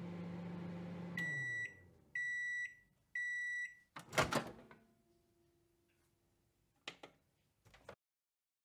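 Microwave oven running with a steady hum that winds down as the cycle ends, then three long beeps signalling the food is done. A loud clunk of the door opening follows about four seconds in, with a couple of small clicks near the end.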